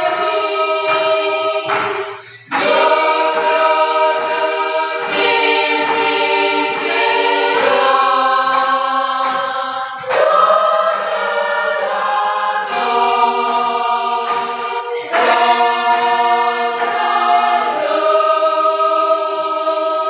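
Women's choir singing a cappella in sol-fa syllables at a practice: sustained notes in phrases, with a brief break about two seconds in.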